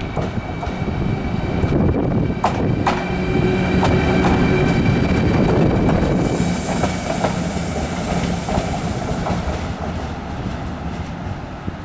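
A train passing on the line: a rumble of wheels with a few sharp clicks over rail joints and a steady high whine, growing louder then fading away toward the end. A hiss comes in about six seconds in and lasts some three seconds.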